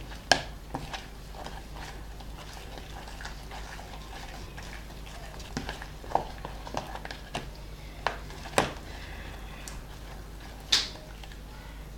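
Slime being stirred in a bowl as the borax activator makes it come together. Scattered clicks and scrapes of the stirrer against the bowl, with a few sharper knocks, sit over a low steady hum.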